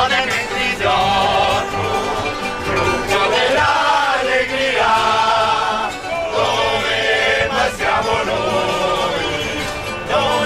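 A group of men singing together to the accompaniment of a mandolin and an acoustic guitar.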